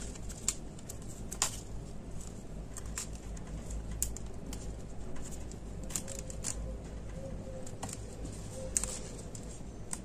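Crepe paper crinkling and rustling as it is wound tightly around a thin wooden stick, in faint, scattered crackles.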